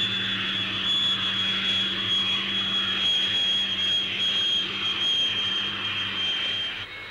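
Folland Gnat's jet engine whining steadily as the fighter rolls out on landing with its brake parachute deployed. The high whine sinks slightly and cuts off abruptly near the end.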